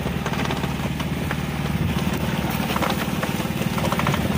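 Small engine idling steadily with a fast, even low throb, with scattered light clicks over it.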